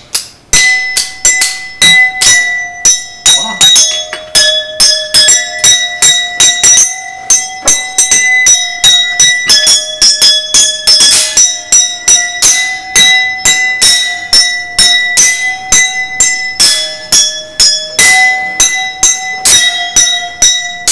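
Drinking glasses filled with water to different levels, struck in quick, even strokes with metal spoons, ringing out a tune that steps between a few notes.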